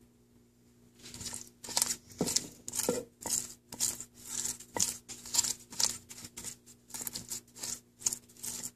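Pastry brush spreading wet sauce over a raw slab of pork ribs, a quick run of swishing, dabbing strokes about three a second that starts about a second in.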